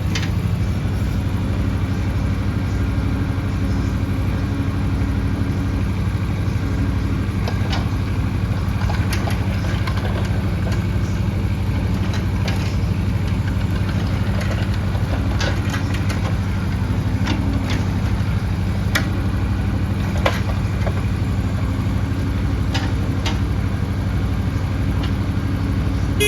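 Bobcat E10Z mini excavator's diesel engine running steadily at an even speed, with scattered sharp clicks and knocks.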